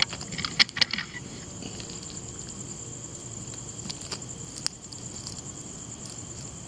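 Steady high-pitched insect trill, with a cluster of sharp clicks in the first second and two more clicks about four seconds in.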